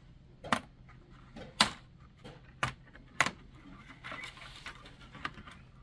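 Sharp clicks, four in the first three and a half seconds, then soft handling noise and a lighter click: the plastic parts of a gauge cluster being pried apart and handled.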